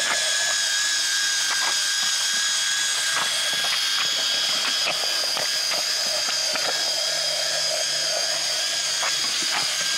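Cordless drill running steadily as it turns the crank shaft of a hand-crank food strainer pressing cooked apples into applesauce, a constant motor whine with scattered light clicks and knocks.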